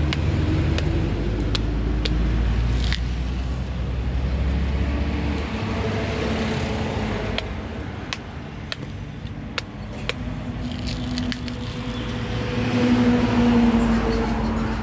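A motor vehicle's engine running with a steady low rumble, its pitch drifting and growing louder near the end, with irregular sharp knife chops into the fibrous husk of sugar palm fruit.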